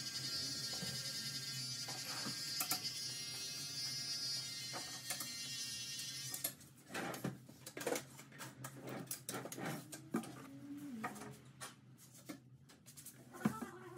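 Electric hair trimmer buzzing steadily during a beard trim, cutting off about halfway through. Scattered light clicks and handling sounds of the haircut follow.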